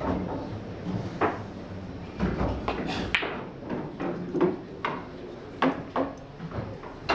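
A pool shot on a billiard table: a sharp click of the cue on the cue ball about a second in, then more clacks and knocks of balls hitting each other and the cushions. The loudest knock comes about three seconds in, and lighter ones follow.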